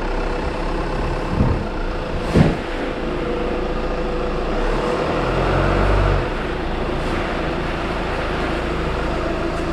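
A car driving, its engine running steadily, with two short thumps about a second and a half and two and a half seconds in, the second the louder, and the engine rising briefly around five seconds in.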